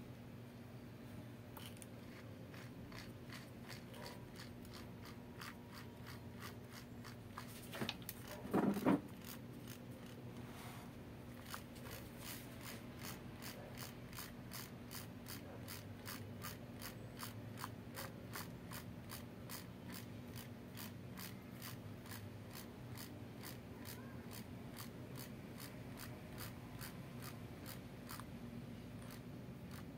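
Light clicks and scrapes from gloved hands handling the Ozito JSG 442VK jigsaw's internal parts (plastic housing, metal gear and blade plunger), with a short, louder clatter about nine seconds in, over a steady low hum.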